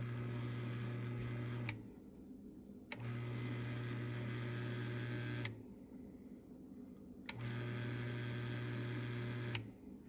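Zoeller cast-iron sump pump motor running dry three times, a steady hum of about two seconds each, switched on and off by hand at its float switch lever, with a click as the switch trips at each start and stop. The pump runs on its newly replaced switch.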